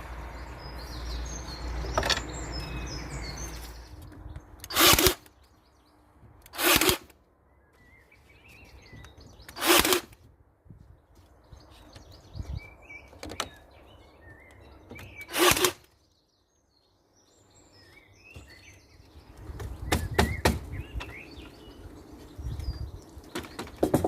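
Four short, loud bursts of about half a second each from repair work on a wooden trellis, with light knocks and clicks near the end. Birds chirp between the bursts.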